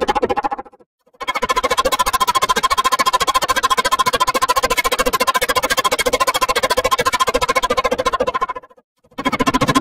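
Electronically processed logo jingle with a very fast, even pulsing warble over steady pitched tones. It drops out to silence about a second in, starts again, and cuts out briefly once more near the end.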